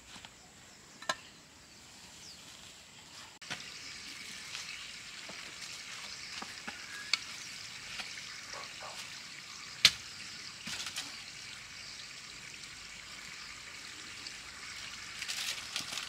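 A steady high hiss of outdoor background noise, which steps up sharply about three and a half seconds in, with scattered sharp taps and clicks. The loudest tap comes about ten seconds in.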